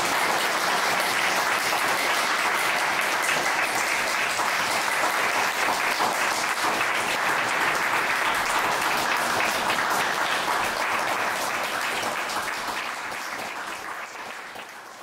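Audience applauding: dense, steady clapping that dies away over the last few seconds.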